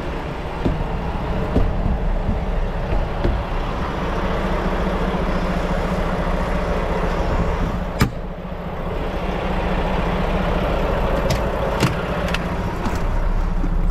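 Semi truck's diesel engine running steadily, with a sharp click about eight seconds in and a few fainter ticks near the end.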